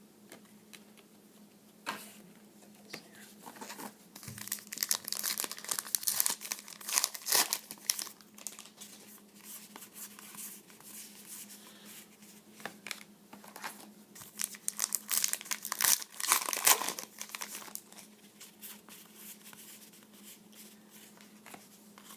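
Trading card pack wrappers being torn open and crumpled by hand, in uneven spells of crinkling and rustling with quieter gaps between.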